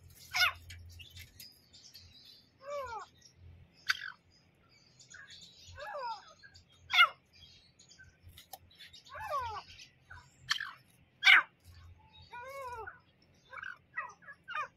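Grey francolin calling: a run of short falling notes, often two or three in quick succession, at irregular intervals, broken by a few sharp, loud single notes.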